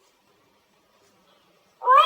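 Near silence, then near the end a high-pitched sung voice begins a line of Quran recitation, sweeping up in pitch at its start.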